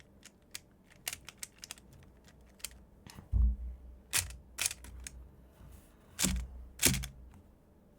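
Quick, irregular plastic clicks and clacks of a MoYu RS3M 2020 speed cube with its springs removed being turned fast, with five louder knocks spread through the middle and later part.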